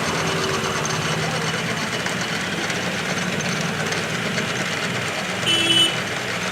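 Lathe gear train running steadily while oil is poured onto the gears. Oiling them is meant to make the machine run quieter.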